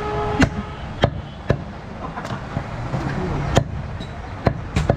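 A butcher's cleaver chopping goat meat and bone, about seven sharp, irregularly spaced strikes.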